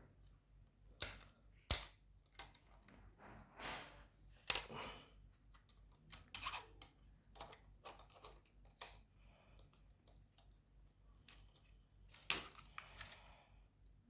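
Canon EOS 3000D camera body and battery being handled: a few sharp plastic clicks, the loudest about two seconds in, with fainter taps and rustles between, as the battery is fitted into its compartment and the door snapped shut.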